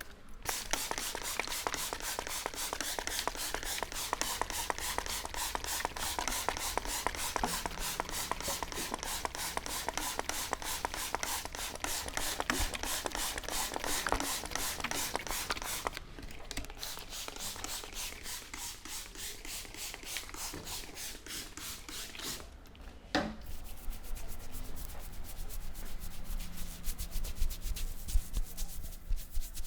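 Hands rubbing briskly back and forth over hair and scalp in a head massage, a fast, even rhythm of friction strokes. The strokes change about halfway through, and after a short break with a single click about three quarters through, a finer, quicker rubbing follows.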